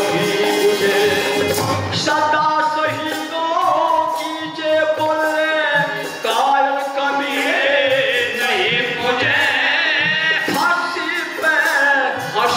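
Live devotional song accompaniment: a harmonium playing a melody over a dholak beat.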